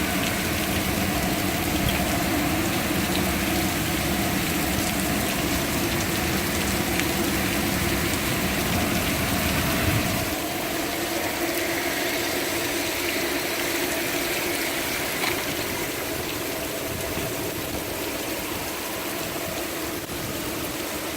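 Heavy rain falling steadily with an even hiss. A low rumble underneath drops away about ten seconds in.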